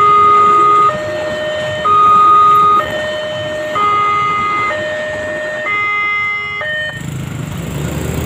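Railway level-crossing warning alarm sounding its electronic two-tone signal, alternating high and low about once a second while a passenger train passes. It stops about 7 seconds in as the crossing clears, leaving a low rumble of road traffic.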